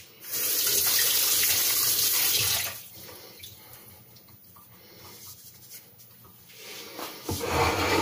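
Kitchen tap running as a knife is rinsed under it: a strong rush of water for about two and a half seconds, then quieter handling sounds, and the water running again near the end.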